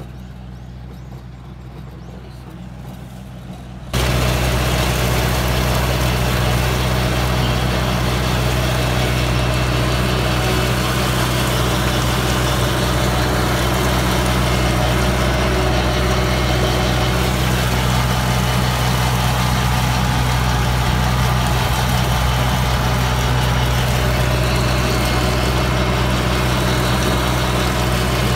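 Heavy farm machine's engine running steadily with a deep hum, quieter for the first few seconds and then suddenly much louder about four seconds in.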